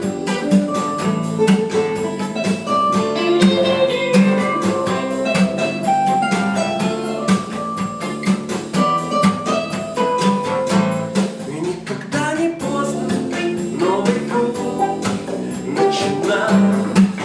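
Acoustic guitar strummed steadily over a pre-recorded backing track played through a small speaker. The backing track carries a loud melodic lead line in this instrumental break between vocal verses.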